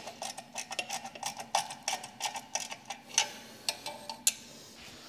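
Ratchet of a torque wrench clicking in quick runs as the exhaust header bolts are tightened, the clicks thinning out after about three seconds, with a single sharper click near the end.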